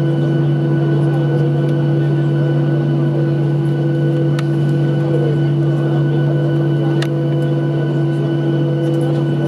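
Steady cabin drone of a Boeing 737-800 taxiing, its CFM56 engines at idle, heard inside the cabin: an even noise with a strong low hum and several higher steady tones. A couple of faint clicks about halfway through.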